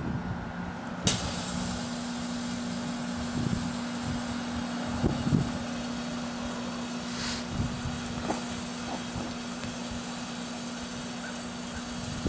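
A 1984 Kenmore microwave oven running with a steady hum. About a second in there is a sharp click and the hum shifts to a slightly higher tone, and a few small pops follow from the kiwi sizzling inside.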